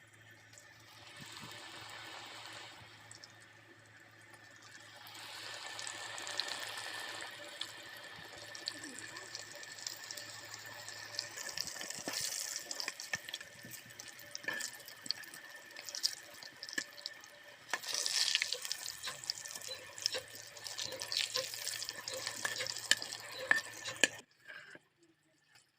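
Battered flat-bean (sem) pakoras sizzling as they deep-fry in hot oil, with small knocks of a utensil. The sizzle swells a few times and cuts off suddenly near the end.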